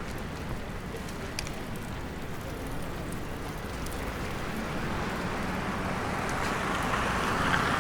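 Ambience of a busy pedestrian street: a steady, noisy wash of the surroundings that grows louder toward the end.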